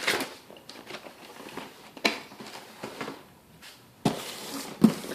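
Cardboard shoe boxes being handled: rustling and scraping with a few sharp knocks, one about two seconds in and one near the end.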